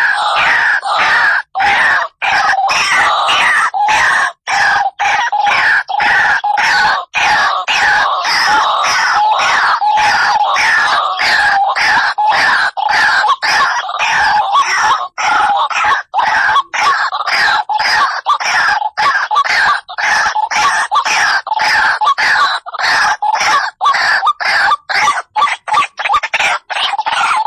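A bird caught in a net squawking loudly and almost without pause: rapid, harsh distress calls broken only by brief gaps.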